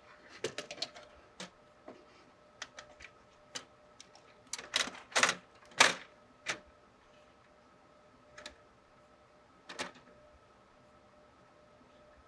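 Irregular clicks and knocks of computer parts being handled against a desktop case, loudest in a cluster of sharp knocks around the middle.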